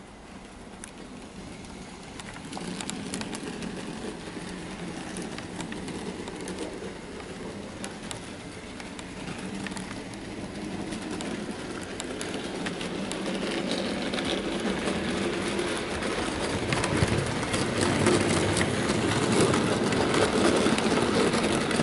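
Heljan Class 14 OO gauge model diesel locomotive running along the track with a train of wagons: motor hum and wheels clicking over the rail joints, growing louder as it comes closer.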